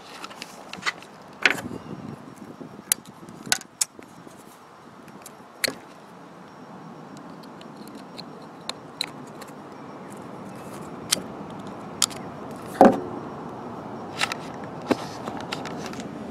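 Irregular metallic clicks, rattles and knocks of hands and tools handling a truck's turn-signal light parts, with a louder knock near the end, over a steady faint background hum.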